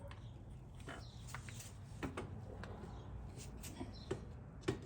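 Faint, scattered clicks and taps as a nylon steering stem bushing is worked into the steering stem housing of a Suzuki LTZ 400, with a couple of sharper clicks near the end.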